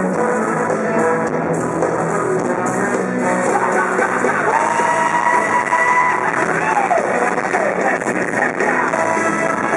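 Live band music with a singer, played loud over a PA at an open-air stage and heard from among the audience. A long held note rings out about halfway through.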